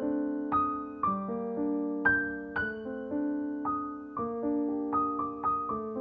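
Background piano music: notes and chords struck about twice a second, each left to ring and fade.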